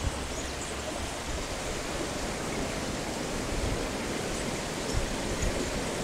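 Steady rushing noise of wind outdoors, with no clear bird calls or tapping standing out.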